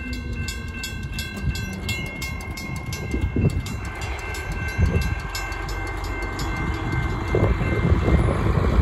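Railroad crossing bells ringing, a mechanical bell striking about four to five times a second over a steady electronic bell tone, while the gates go up. The bells fade out about two thirds of the way through. A farm tractor's engine then grows louder near the end.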